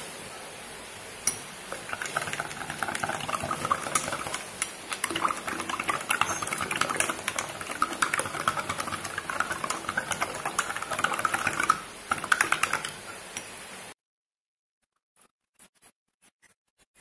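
A spoon stirring juice in a glass, with rapid scraping and clinking against the glass over a steady hiss. The stirring cuts off suddenly near the end, leaving near silence with a few faint clicks.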